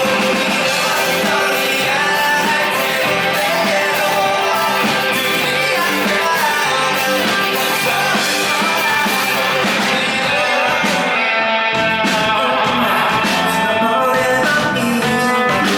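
Live rock band playing a song: a lead vocal over electric guitar, bass guitar and drums, with a steady beat.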